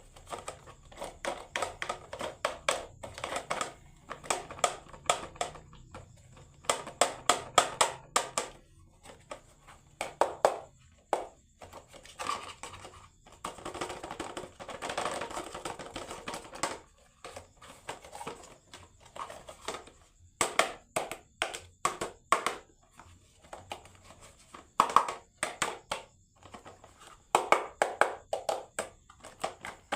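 Marbles clattering down a wooden HABA marble run in bursts of rapid clicks and clacks, with a stretch of continuous rolling about halfway through.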